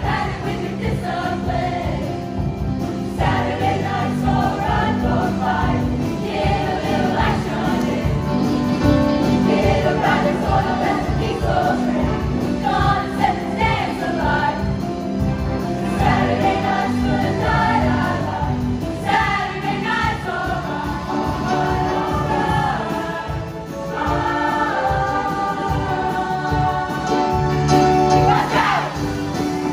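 Show choir singing in full voice over instrumental accompaniment with a steady, rhythmic bass line.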